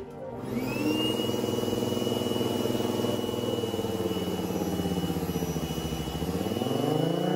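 3D-printed miniature Federal Signal Thunderbolt 1003 siren running on air from a blower. A low droning tone sags slowly in pitch, then starts rising steeply near the end as the siren winds up, over a steady high whine.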